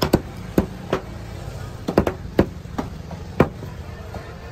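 Large knife chopping cobia into chunks on a thick wooden cutting block. About eight sharp, irregular knocks, roughly two a second.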